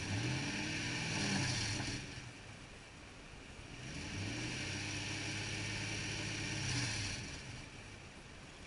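Toyota Tundra engine revved twice, heard at the tailpipe, with a rush of exhaust on each rev. The first rev rises and drops back within about two seconds. The second climbs about three and a half seconds in, holds for about three seconds, then falls back to idle. The engine is being revved to clear Sea Foam cleaner after a soak.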